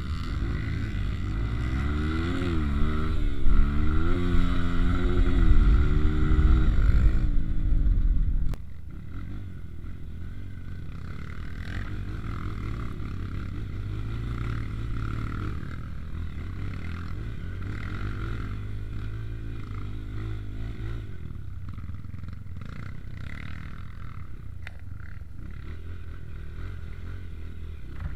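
Trail motorcycle engine revving up and down under load for the first eight seconds or so. Then the sound drops suddenly to a quieter, steadier engine running.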